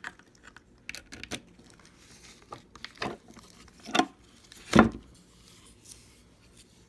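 U-lock, key and packaging being handled by hand: scattered clicks, knocks and light rustling, with the loudest knock about five seconds in.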